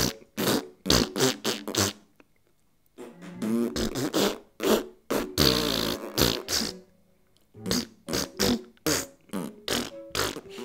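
A tune made of fart sounds: a quick, rhythmic run of short pitched farts, broken by a pause about two seconds in.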